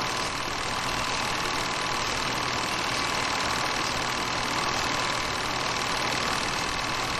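A steady mechanical running noise with hiss and a few faint steady tones, unchanging throughout, like a small motor.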